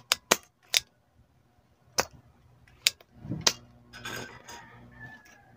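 Sharp clicks of a spring-loaded desoldering pump (solder sucker) being cocked and fired to clear solder from a circuit board's through-holes: three quick clicks in the first second, then single clicks about two, three and three and a half seconds in. Softer handling and rustling follow near the end.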